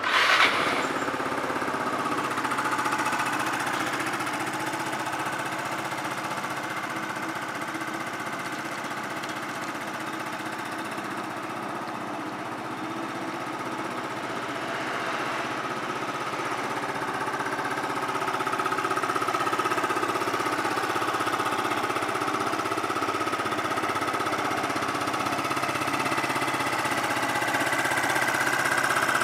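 Yamaha Cygnus X SR scooter's single-cylinder four-stroke engine started on the electric starter, catching at once, then idling steadily and evenly. The engine is in good running order.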